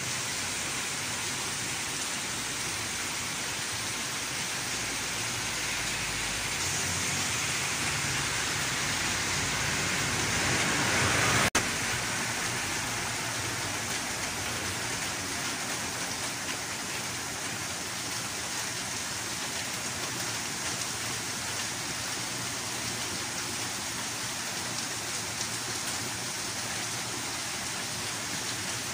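Steady rain falling on a street and wet pavement, an even hiss. About eleven seconds in, a louder swell builds and then cuts off abruptly.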